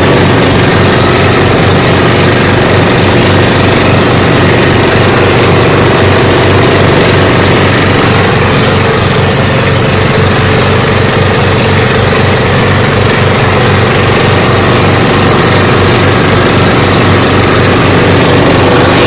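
Outrigger fishing boat's engine running steadily while the boat is underway, loud and close, with an even, rapid firing rhythm.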